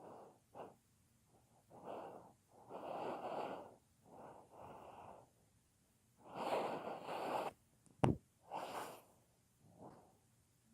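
Sleeping dog snoring: irregular noisy snoring breaths, some short and some drawn out over about a second. A single sharp click about two-thirds of the way through is the loudest moment.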